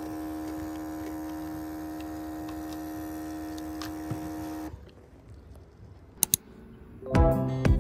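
Philips automatic espresso machine's pump running with a steady hum while it dispenses coffee, cutting off suddenly a little over halfway through. A couple of light clicks follow, then music starts near the end.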